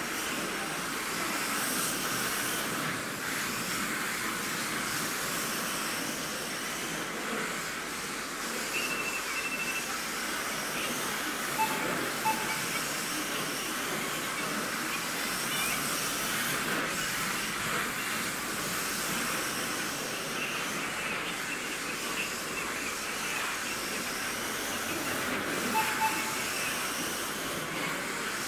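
Kyosho Mini-Z MR-03VE 1:28-scale RC car lapping a carpet track, its small brushless electric motor and tyres making a steady high whine and hiss. A few short beeps come through.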